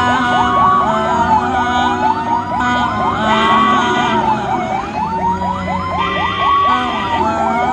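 Ambulance siren sounding: a slow wail rising and falling about every two and a half seconds, with a fast yelping tone repeating several times a second over it, above a steady low rumble.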